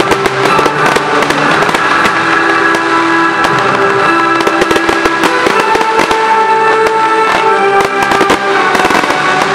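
Fireworks display: many bangs and crackles from bursting aerial shells and shore fountains, over continuous music with held notes.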